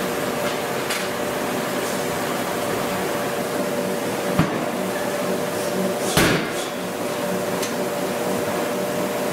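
Steady hum and noise of forge-shop machinery, with two sharp metal knocks as a hot steel billet is handled with tongs on the steel block; the second knock, about six seconds in, is the louder and rings briefly.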